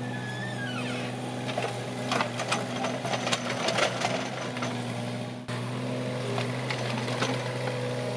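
Kubota mini excavator's diesel engine running steadily, a constant low hum with overtones, with scattered knocks and scrapes of stone and soil from the digging. The sound breaks off for an instant about five and a half seconds in, then carries on.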